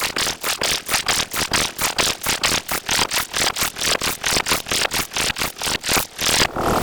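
A short, noisy sound clip chopped and repeated rapidly in a stutter edit, about six or seven hits a second, giving a rattling effect.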